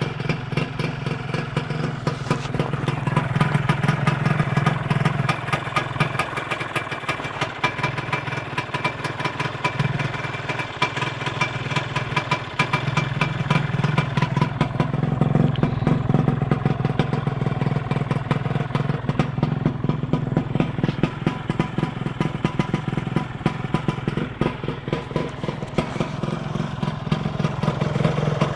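Motorcycle engine running steadily, with small swells in level.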